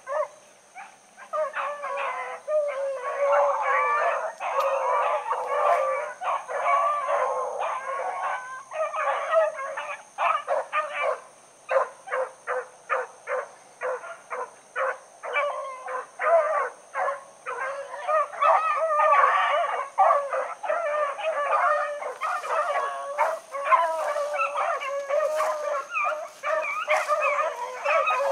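A pack of about thirteen rabbit hounds in full cry on a rabbit's trail, many voices baying and barking over each other. In the middle stretch the cry breaks into a quicker run of separate barks, then swells back into continuous baying.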